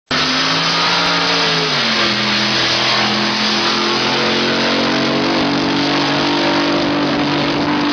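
A drag boat's racing engine running at high revs. Its pitch climbs in a few steps over the first five seconds, then holds.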